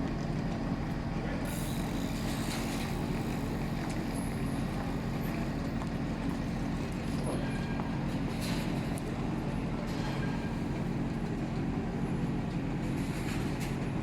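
A heavy vehicle's engine running steadily, with a few short hisses over it.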